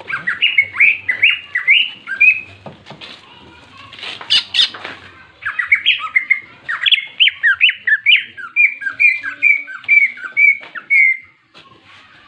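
Caged green leafbird (cucak ijo) singing in its fast, repeated fighting style (ngentrok): a short burst of quick downslurred whistles, a brief break with a few sharp notes, then a long even run of about four notes a second that stops near the end.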